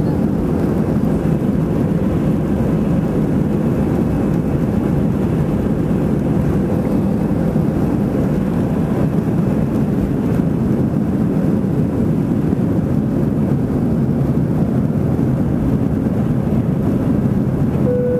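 Airbus A319 cabin noise heard from a window seat over the wing during the takeoff roll and climb-out: the engines at takeoff thrust and the rush of air, a loud, steady, low noise. A brief steady tone sounds at the very end.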